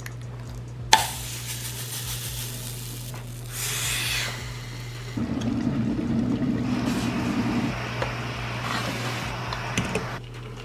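An electric kettle switched on with a click about a second in, then heating water with a rushing hiss that swells and fades, over a steady low hum. Small kitchen handling knocks come as batter goes into a mini waffle maker.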